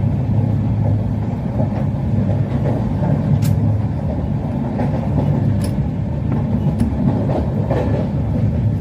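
Moving train running on the track: a steady low rumble of wheels on rails, with a few sharp clicks and knocks at uneven intervals.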